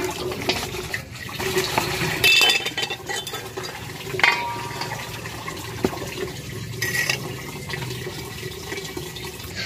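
Water running and splashing, with a few light clinks of dishes.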